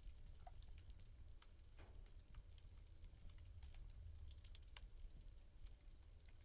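Faint, irregular crackling and popping of burning firewood in a tipi-style fire pit, a few small snaps a second over a low steady rumble.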